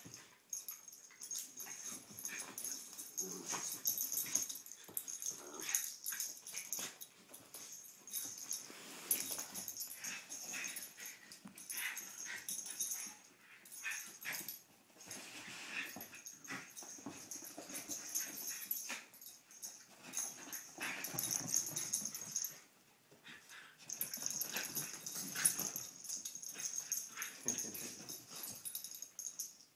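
Two small dogs, one a Jack Russell terrier, play-fighting: irregular breathy dog noises, on and off, with a couple of brief lulls.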